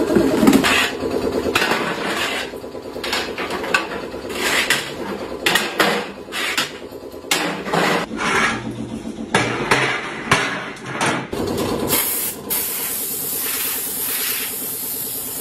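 Metal idli trays clattering and knocking as they are handled and stacked, over a steady hum. About twelve seconds in, a hose-fed spray gun starts hissing steadily as it sprays the trays.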